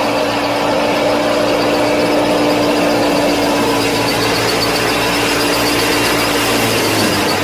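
Small DC electric motors running a homemade mini combine harvester, a steady whine and buzz that shifts slightly in pitch near the end.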